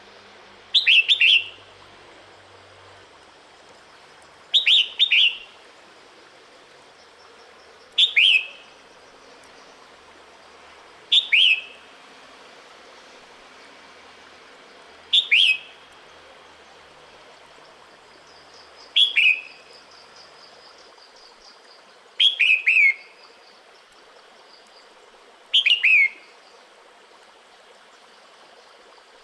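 Female red-whiskered bulbul giving short, sharp calls about every three and a half seconds, each a quick falling note or two-to-three-note phrase, eight times: the female's breeding-season call to a male.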